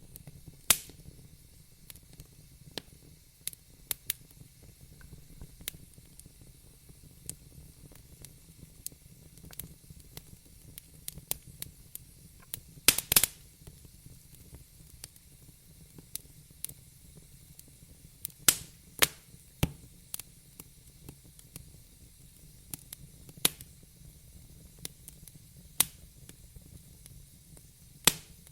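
Wood fire burning in a fireplace: irregular sharp crackles and pops, a few louder snaps, over a low steady rumble of the flames.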